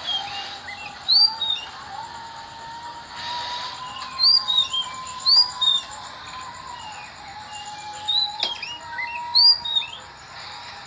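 Oriental magpie-robin (kacer) singing: clusters of short, loud, rising-then-falling whistled notes, coming in bursts every second or two, over a long steady tone in the background.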